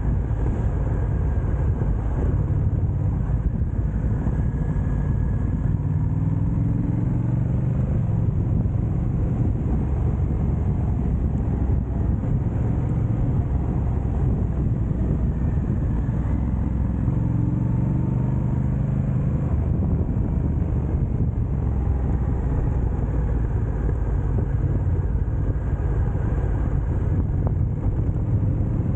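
Motorcycle engine running on the road, a steady low rumble; the engine note rises as it accelerates about six seconds in and again about seventeen seconds in.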